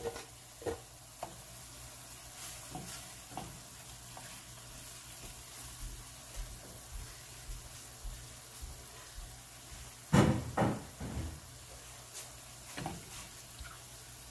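Ground turkey and pork frying in a stainless-steel skillet with a soft, steady sizzle. A wooden spoon now and then scrapes and knocks against the pan, with a louder cluster of knocks a little after ten seconds in.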